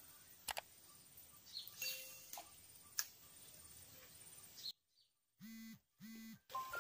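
Quiet outdoor ambience with faint bird chirps and a few sharp clicks. Near the end, two short, steady buzzing tones sound over complete silence.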